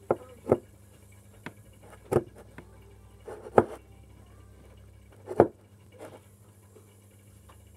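Hands kneading and slapping sticky bread-style dough in a bowl, giving about five short, sharp slaps spread over several seconds.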